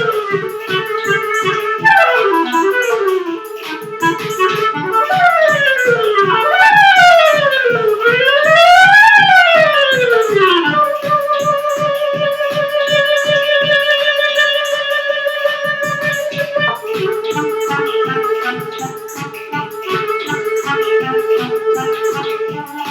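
Clarinet playing fast rising and falling arpeggio runs, then long held notes from about eleven seconds in, over a steady programmed beat at 163 beats a minute from a groove-maker app.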